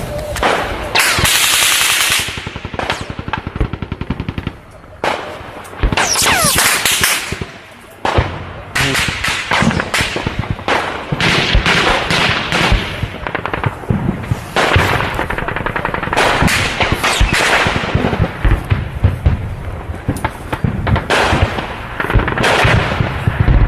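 Bursts of automatic rifle fire, rapid shots and sharp cracks, through most of the stretch, with short lulls about four and a half seconds and seven and a half seconds in.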